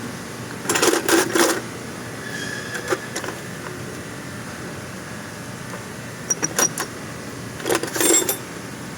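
Metal tools and parts clattering and clinking in three short bursts, about a second in, at six and a half seconds, and near eight seconds, over a steady background hum.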